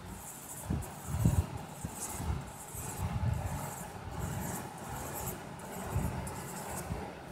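Felt-tip sketch pen scratching on paper as small circles are drawn, in short repeated strokes, with low knocks and rumble underneath.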